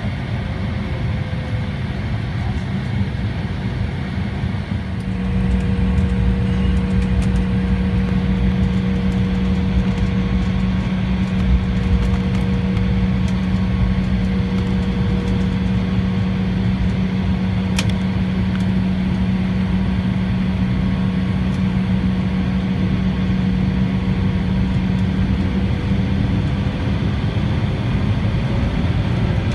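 Cabin sound of an Embraer ERJ-175's General Electric CF34 turbofans at taxi power, heard over the wing: a steady low drone with a fainter hum above it over a rumbling haze, stepping up in level about five seconds in. A single sharp click about two-thirds through, and near the end the upper tone rises slightly as the engines spool.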